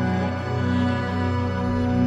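Background music: slow, sustained ambient tones.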